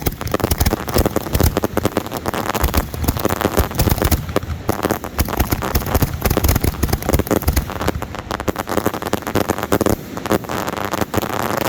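Fireworks going off in a dense barrage: rapid bangs and crackling, many reports a second without a break.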